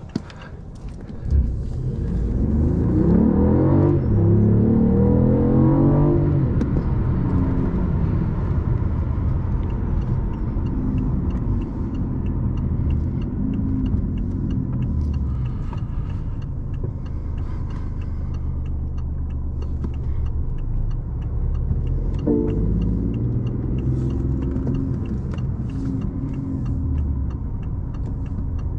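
BMW i8's 1.5-litre turbocharged three-cylinder engine, heard inside the cabin: it pulls hard about two seconds in with its pitch rising for a few seconds, then settles to a steady drone while cruising, and picks up again briefly about 22 seconds in.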